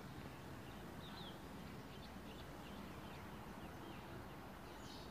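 Faint steady background noise with scattered short, high bird chirps.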